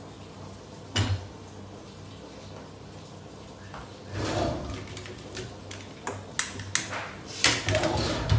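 Kitchen clatter of cookware and containers being handled and set down: one sharp knock about a second in, then a run of short clicks and knocks in the second half.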